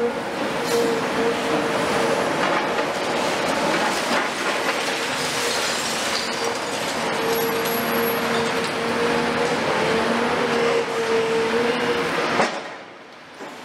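CAT 336F long-front demolition excavator, Cat C9.3 diesel engine and hydraulics running under load with a steady whine that fades in and out, while its demolition shear crunches through reinforced concrete and rubble falls, mixed with the hiss of a dust-suppression water spray. The sound drops away sharply for about a second near the end.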